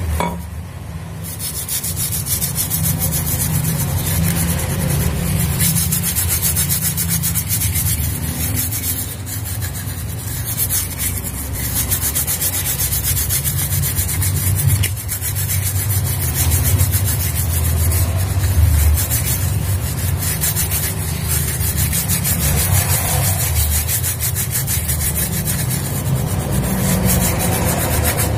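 A stiff brush scrubbing the solder side of a UPS circuit board to clean it with thinner: a fast, continuous scratching of bristles on the board. Under it runs a steady low hum.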